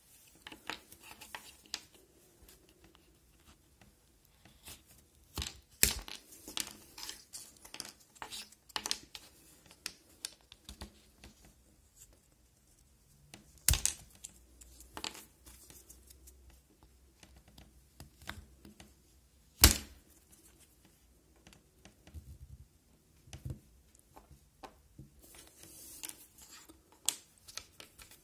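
Small pieces of hard plastic being handled on a cutting mat: scattered light clicks, taps and scrapes as they are picked up and set down, with three sharper clacks standing out.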